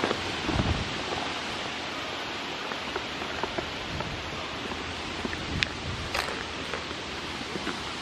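Steady hiss of wind on the microphone, with light rustling and a few short clicks near the start and around two thirds of the way through.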